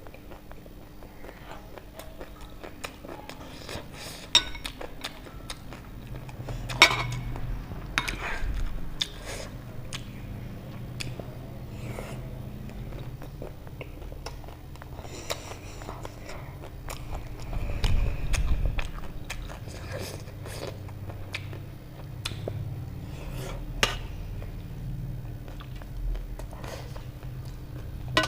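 Close-miked mukbang eating sounds: a person chewing and biting food, with scattered sharp clicks and taps.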